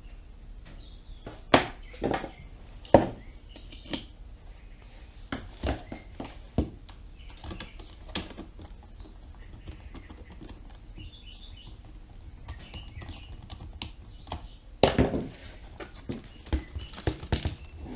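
Scattered clicks and taps of a Phillips screwdriver working a screw out of a Dyson V6 vacuum's plastic housing, with a cluster of louder knocks and clatter near the end.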